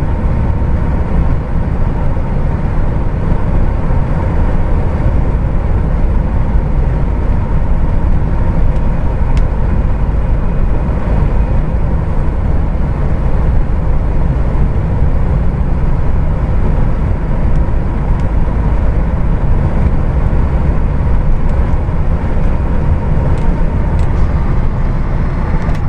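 Heavy truck driving at a steady speed on a highway, heard from inside the cab: a steady low rumble of engine and road noise, with a faint steady whine.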